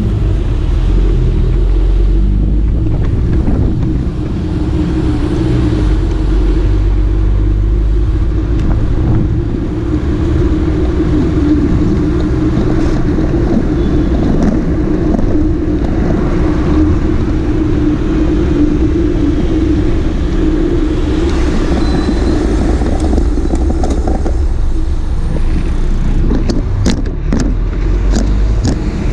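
Sport motorcycle riding at a steady speed, its engine a steady low drone with no clear revving. A few sharp clicks come near the end.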